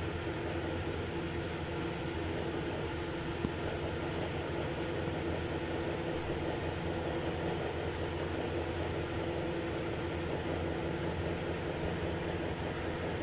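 Steady background machine hum, even and unchanging, with one faint click about three and a half seconds in.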